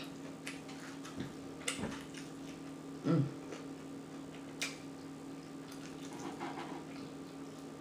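Quiet wet chewing and lip smacking of someone eating, with scattered sharp mouth clicks and a brief voiced sound about three seconds in, over a steady faint hum.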